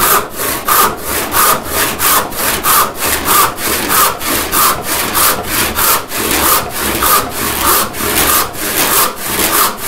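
Hand saw ripping down through the length of a board in a resaw cut, with a steady, even rhythm of back-and-forth cutting strokes.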